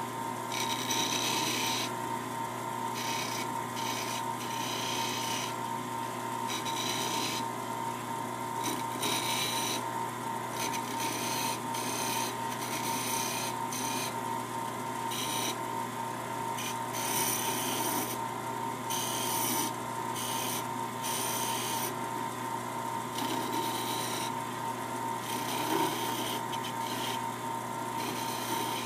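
A flat file rubbing against a rosewood bead piece spinning on a small woodturning lathe, filing its inlaid silver wire flush. The rasping comes and goes in short strokes over the lathe's steady motor hum.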